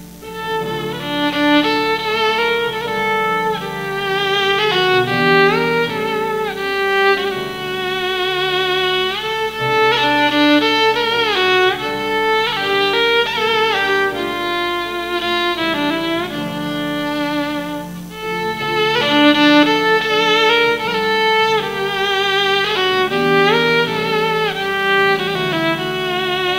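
Solo violin playing a slow melody with vibrato and sliding notes, over a steady lower accompaniment.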